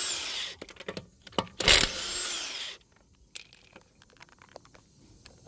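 DeWalt cordless impact wrench with a 21 mm socket hammering wheel lug nuts loose, in two bursts: one ending about half a second in, the other from just under two seconds to nearly three. After that come a few light clicks and rattles.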